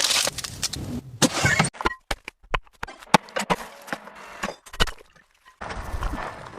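A quick series of sharp cracks and crunching clicks, denser in the middle, with rustling bursts at the start and near the end.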